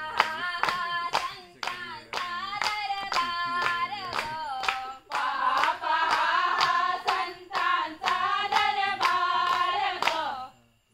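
A group of women singing a Konkani folk song together, clapping their hands on a steady beat of about two to three claps a second. The song and the clapping stop shortly before the end.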